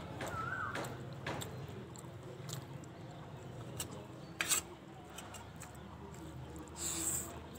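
Close-up chewing and wet mouth sounds of someone eating Maggi noodles and boiled egg, with small clicks of a steel spoon on a steel plate; the loudest is a sharp clink about four and a half seconds in.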